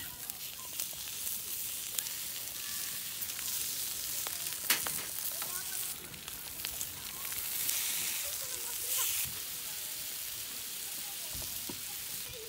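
Strips of pork belly sizzling and spitting on a hot griddle pan over a wood stove, with a few sharp metal clicks, the loudest about five seconds in.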